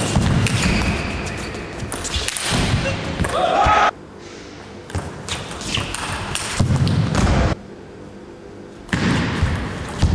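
Table tennis rally: the ball clicking off rackets and table, with thuds of the players' feet on the court floor and a short voice near the middle. The loud, noisy hall background cuts off abruptly about four seconds in and comes back in stretches later.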